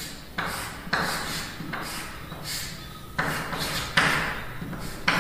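Chalk scraping on a blackboard in a series of short strokes, about one a second, as lines are drawn.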